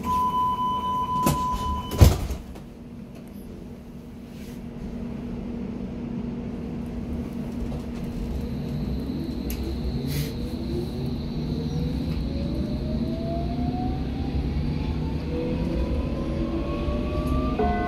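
Hamburg U-Bahn DT5 train: a door-closing warning tone, then the sliding doors shut with a loud thud about two seconds in. After a few seconds of running rumble, the train pulls away, its traction drive whining in rising tones as it accelerates. A chime starts right at the end.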